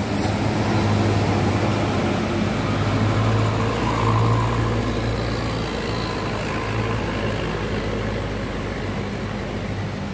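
Large bus's diesel engine running steadily at low revs, a deep even hum that swells slightly in the first few seconds and then eases off.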